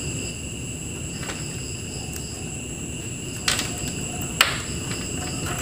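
Sharp clicks of hands handling parts inside an opened LED TV: a faint one about a second in and two louder ones after about three and a half seconds. Under them runs a steady high-pitched ringing background.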